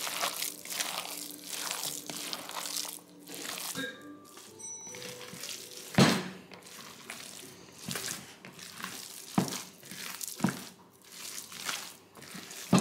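Hands squishing and turning wet momo filling of cold minced meat and chopped cabbage in a glass bowl, in repeated rustling strokes. A sharp knock about halfway through is the loudest sound.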